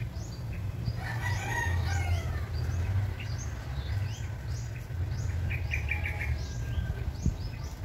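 Small birds chirping over and over with short, high, falling notes, and a rooster crowing about a second in. A low steady rumble runs underneath.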